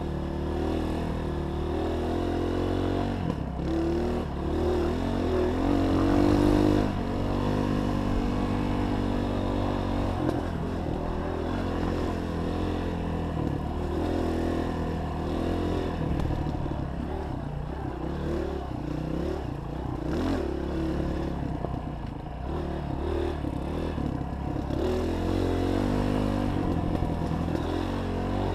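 Honda 230 dirt bike's four-stroke single-cylinder engine being ridden on a trail, its pitch rising and falling as the throttle is opened and rolled off, loudest about six seconds in. A few short knocks and rattles from the bike are heard over the bumps.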